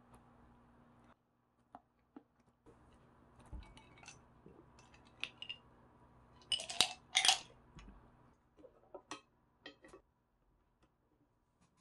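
Ceramic dishes, a glass and wooden chopsticks clinking and clattering as they are gathered and stacked on a plate, with two louder clinks a little past the middle.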